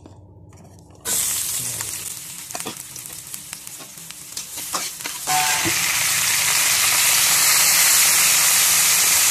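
Chopped onion, garlic and ginger dropped into hot oil in a wok, sizzling loudly at once, about a second in, with a metal spatula clicking against the pan as it stirs. About five seconds in, the sizzling jumps louder and holds steady, once a dark sauce, likely the oyster sauce, has gone in.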